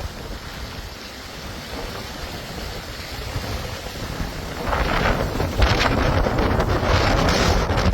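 Storm noise: wind buffeting the microphone over a rushing haze of wind and water. It swells clearly louder about five seconds in.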